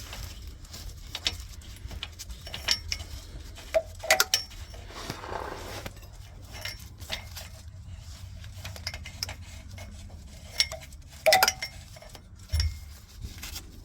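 Scattered small metallic clinks and taps, several with a short ring, from a new oxygen sensor and hand tools being handled and screwed in under a car, with a brief rustle about five seconds in.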